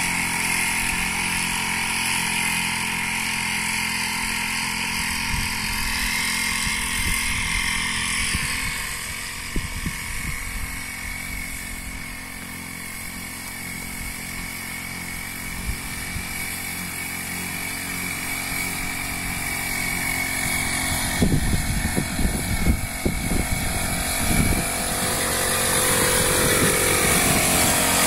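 Engine of a motorized backpack crop sprayer running steadily, fading as it moves away and growing louder again near the end as the spray is blown over the okra. A few scattered thumps come in the last third.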